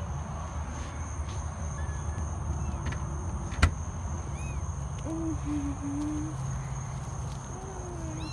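Night-time outdoor ambience: insects trill steadily at a high pitch over a low hum. From about five seconds in come a few short, low hooting calls, and a single sharp click sounds a little before the middle.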